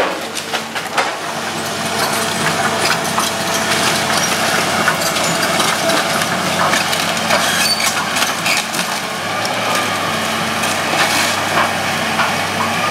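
John Deere tracked excavator's engine running steadily under load while it tears into a wood-frame house: timber cracking and splintering and debris crashing down continuously, with many sharp cracks.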